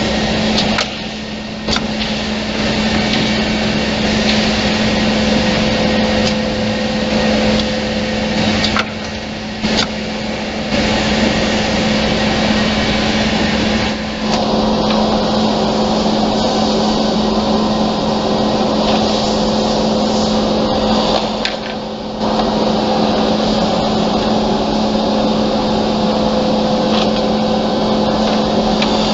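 Automatic double-end cutting and drilling woodworking machine running: a steady motor hum over a dense whirring noise, dipping briefly a few times, with a few clicks.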